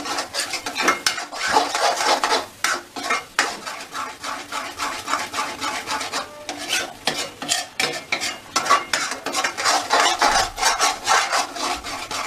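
Metal spatula scraping and stirring a thick mawa and cocoa mixture in a steel kadhai, in quick repeated strokes. The mixture is being kept moving without pause so that the cocoa blends in without lumps.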